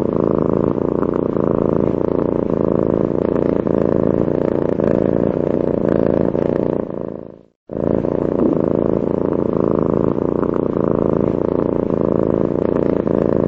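Domestic cat purring steadily and close, a dense rumbling purr. It fades out about seven seconds in, stops for a moment, then starts again unchanged.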